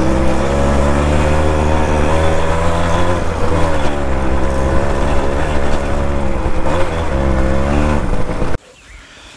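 Suzuki Max 100's two-stroke single-cylinder engine running under way, its pitch rising and falling a little with the throttle. It cuts off suddenly near the end.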